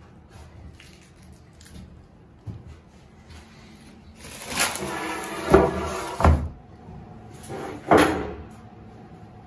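Plastic sheeting crackles as it is pulled off a plywood panel, with two sharp wooden thumps during the rustling. A single louder knock follows near the end.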